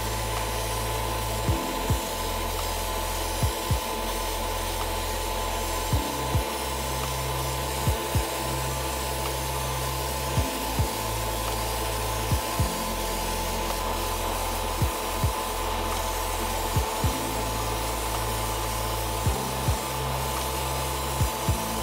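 Airbrushing equipment giving a steady hiss and hum, under background music with a slow bass line and a double beat about every two seconds.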